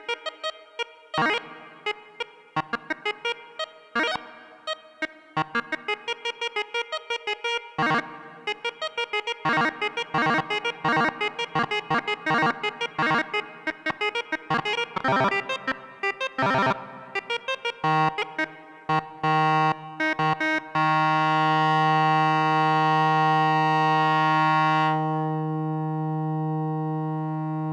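Behringer Odyssey duophonic analog synthesizer played live: a run of short, quickly repeated staccato notes. About 18 seconds in it gives way to a long held tone whose brighter upper part drops away about 25 seconds in.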